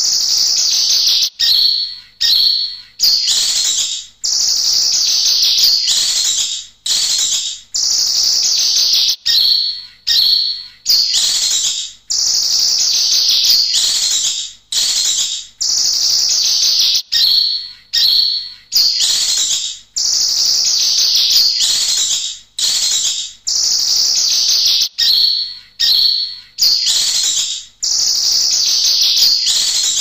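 Kinoy songbird singing loudly and without pause: a long run of high, chattering phrases, each about a second long and sliding downward in pitch, separated by brief breaks.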